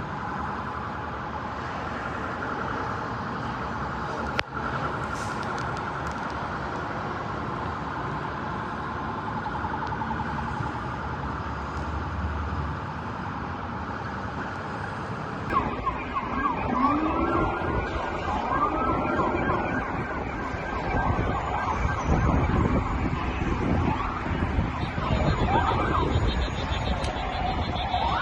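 Emergency vehicle sirens over street noise. For the first half there is a steady noise with a faint high tone and a single sharp click. After an abrupt change, several sirens wail and yelp louder, rising and falling in pitch.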